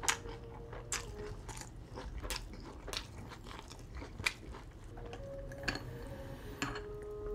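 A person chewing a mouthful of Whopper burger close to the microphone: soft, wet mouth clicks and smacks at irregular moments.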